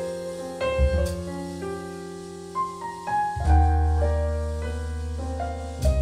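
Piano playing slow chords over deep sustained bass notes, the instrumental intro of a vocal jazz song, reproduced by Dali Rubicon 8 floor-standing speakers driven by a Cambridge Audio Azur 851a amplifier. Two short percussive hits come about a second in and near the end.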